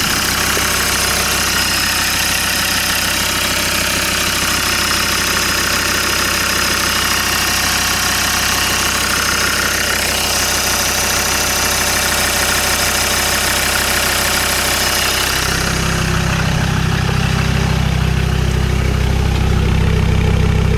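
Land Rover Discovery 2's Td5 five-cylinder turbodiesel idling evenly with no misfire on its new injector loom. About fifteen seconds in the sound moves to the exhaust tailpipe: the high end falls away and a deeper, stronger exhaust note takes over.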